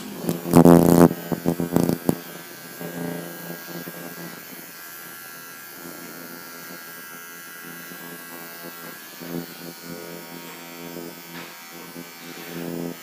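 Electric pet clipper running with a steady buzzing hum as it trims the fur around a dog's paw. A burst of loud knocks and clatter comes in the first second or two.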